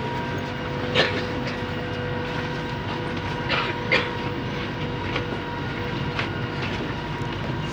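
Bombardier Innovia Metro 300 train running, with a steady rumble and faint steady whine. Sharp knocks come about a second in, two in quick succession near the middle, and a couple more later. This is the weird knocking that the rider puts down to the third rail.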